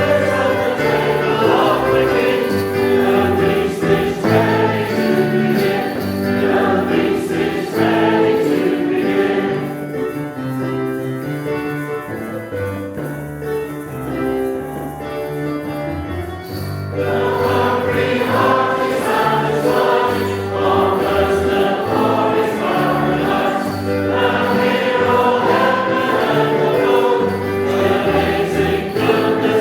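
Gathered congregation singing a hymn in chorus with instrumental accompaniment. The music grows softer and thinner for several seconds in the middle, then returns to full volume.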